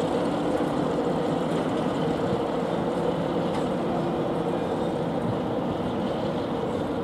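Diesel train engine idling: a steady drone with an even hum and no change in pitch.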